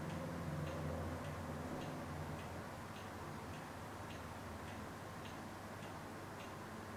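Faint, regular ticking, a bit under two ticks a second, over a low hum that fades out about two and a half seconds in.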